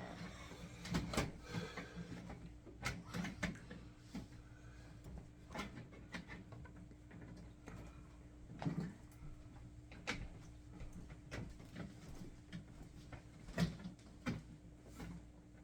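Irregular knocks, clicks and clatters of objects being handled, the loudest about a second in and near the end, over a faint steady hum.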